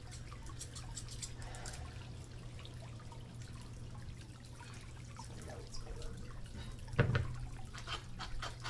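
Grooming scissors snipping hair on a small dog's face: a quick run of short crisp snips in the first second and a half, over a steady low hum. One loud thump about seven seconds in.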